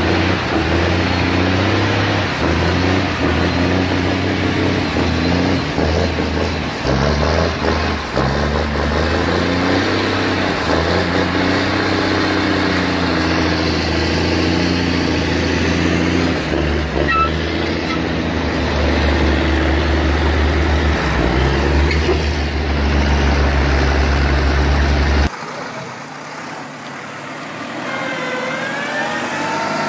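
Heavy diesel engine of a loaded Mack log truck running under load, its pitch stepping up and down. About 25 seconds in the sound cuts abruptly to a quieter tractor engine revving up.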